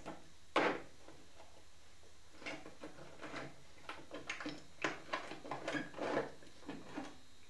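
A hand tool working on the ignition coil's mounting bracket as the coil is undone: a sharp click about half a second in, then a run of light, irregular clicks and scrapes.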